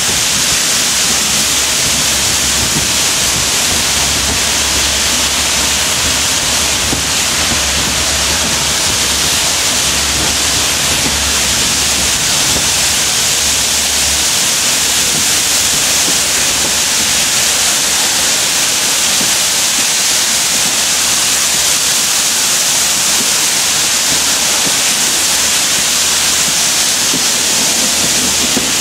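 Four steam locomotives working hard at the head of the train, heard from a carriage window: a loud, continuous rush and hiss of exhaust and running train with no separate beats, and a low rumble through the first half.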